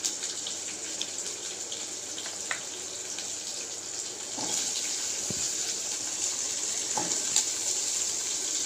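Shallots sizzling in hot oil in a metal kadai: a steady frying hiss that grows louder about four and a half seconds in, with a few faint ticks.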